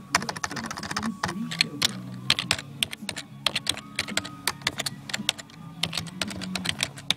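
Typing on a computer keyboard: quick, irregular key clicks with short pauses between bursts.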